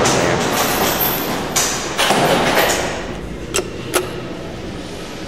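Elevator doors sliding, a rumbling noise lasting a couple of seconds, then two sharp clicks about half a second apart as a wall call button is pressed.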